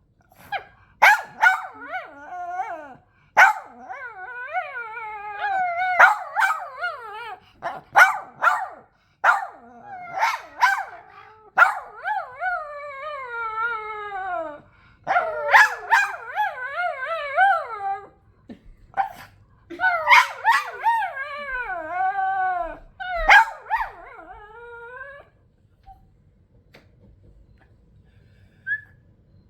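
A dog 'talking': short sharp barks mixed with long howling yowls that waver up and down in pitch. It falls quiet a few seconds before the end.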